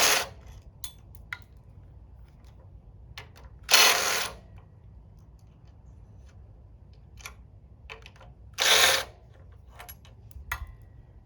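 Three short bursts of tool noise as bolts on the handlebar clamp are worked loose, with scattered small metal clicks and clinks between them.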